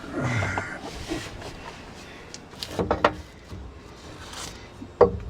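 Parts and tools being handled during a front driveshaft install: a scrape just after the start, a quick cluster of clanks about three seconds in, and a loud sharp knock near the end.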